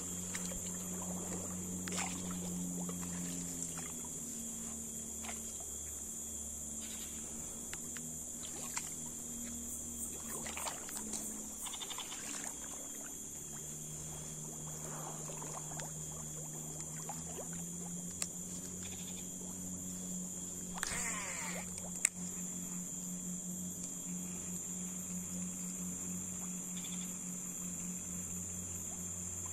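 Swamp-forest ambience: a steady high-pitched insect buzz over a low droning hum that slowly shifts in pitch, with scattered clicks and rustles of someone moving through the vegetation at the water's edge, and a louder rustling burst about two-thirds of the way through.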